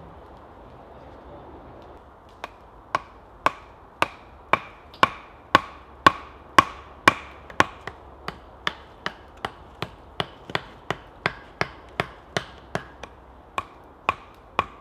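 Stakes being hammered into the ground: a long run of sharp, ringing knocks, about two to three a second, that starts a couple of seconds in, grows louder and slightly quicker toward the middle and tails off near the end.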